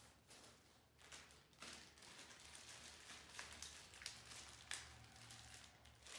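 Faint rustling and crinkling of packaging: a soft protective sheet pulled off the monitor, then plastic bags handled, with several sharp crinkles.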